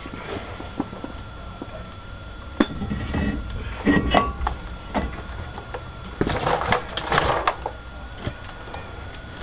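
Metal tools and parts being handled: scattered clinks and knocks, with busier stretches of rattling and scraping about four seconds in and again around six to seven seconds in.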